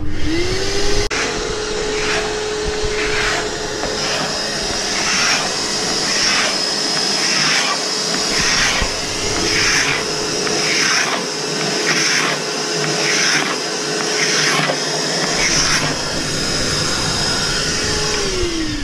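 Vacuum cleaner switched on, running steadily and spinning down near the end. Over it, a hand scraper scrapes flaking old anti-fouling paint off a fibreglass boat hull at about one stroke a second.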